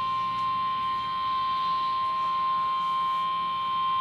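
Emergency alert attention tone: one steady, unbroken high tone, the National Weather Service's 1050 Hz warning alarm tone that comes before a broadcast weather warning.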